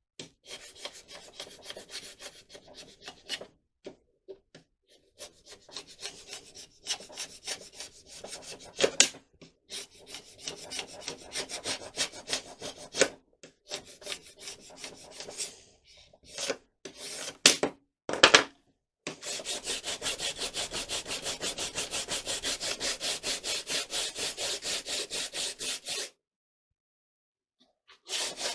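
Hand sanding: irregular scratchy rubbing strokes at first, then about two-thirds in a fast, even back-and-forth run of short strokes for several seconds. The sanding stops briefly and starts again at the very end.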